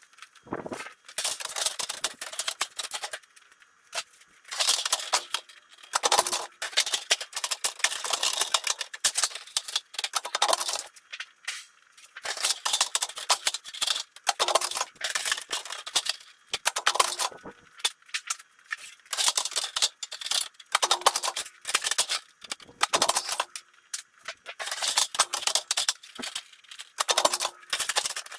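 Thin sheet metal from old air ducts being worked by hand: rapid metallic clicking and rattling in spells of a second or two, with short pauses between them.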